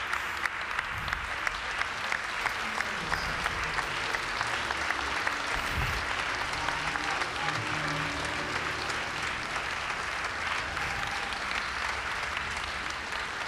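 Large audience applauding steadily, many hands clapping at once.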